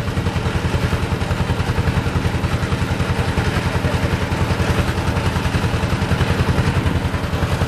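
Boat engine running steadily, a rapid even low pulsing with no change in speed.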